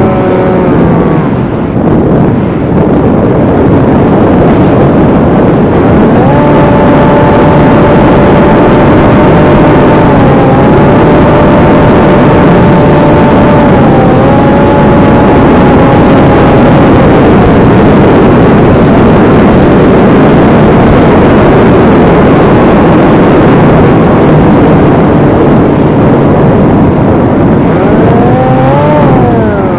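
Electric motor and propeller of a Versa Wing RC flying wing in flight: a steady hum that dips slightly in pitch now and then, and glides up and down near the end, under heavy wind noise on the microphone.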